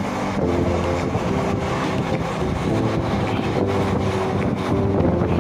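Train running at speed, its steady rumble mixed with wind noise on the microphone, under background music whose held notes change about every half second.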